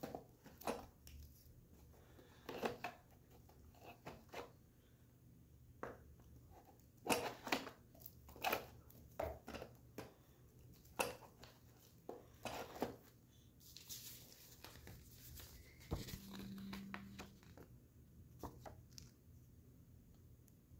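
Hands handling board-game pieces in a cardboard box: card decks and game pieces lifted out of the tray, with scattered light clicks and taps, and a stretch of crinkly paper or wrapper rustling about two-thirds of the way through.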